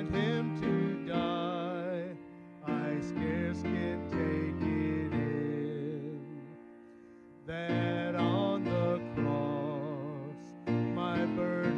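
A man singing a hymn with vibrato, in phrases broken by short breaths, over a sustained keyboard-style accompaniment.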